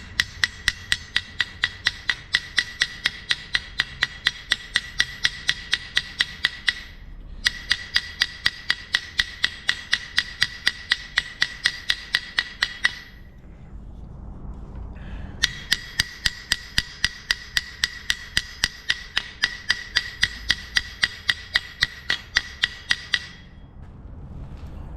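Hammer striking steel in quick, even blows, about four or five a second, each with a bright metallic ring. The blows come in three runs with short pauses between them.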